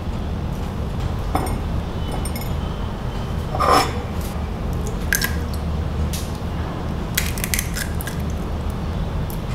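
Kitchen food-prep handling sounds over a steady low hum: small clicks and squishes as seeds are pulled from green bell pepper rings, a louder single sound about four seconds in, then a quick run of sharp clicks near the end as eggs are cracked into a ceramic bowl.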